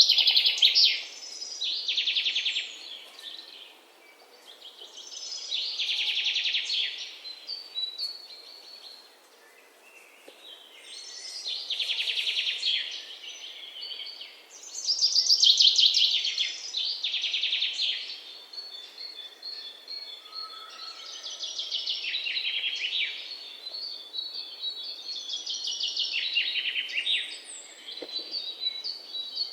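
Songbirds singing: rapid trilled phrases of one to two seconds, repeated every few seconds, over a faint steady hiss.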